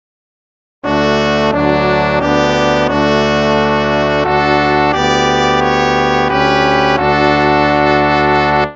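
Instrumental hymn music in slow, sustained chords. It begins about a second in after a brief silence and stops abruptly just before the end.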